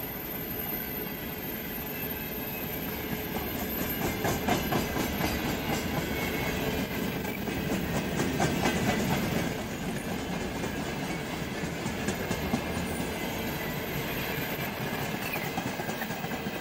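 Freight train rolling past, its wagon wheels clattering over the rail joints with a steady rumble, loudest in the middle and easing toward the end.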